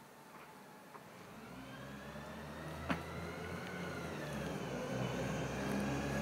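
Bus approaching and growing steadily louder: its engine runs low and steady under a whine that rises and falls in pitch.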